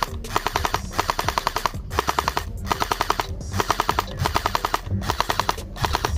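AK-style electric gel blaster firing full-auto, with a rapid rattle of shots in a string of short bursts, each under a second, broken by brief pauses.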